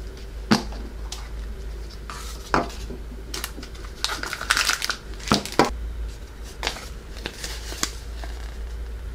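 Plastic gashapon capsule being handled and snapped open, with several sharp plastic clicks, then a plastic bag crinkling and a folded paper leaflet rustling as it is unfolded.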